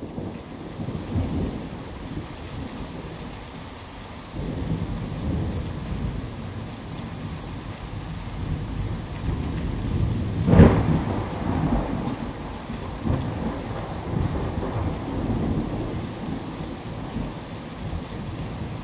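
Thunderstorm: steady rain with rolling rumbles of thunder, and one sharp, louder thunderclap about halfway through.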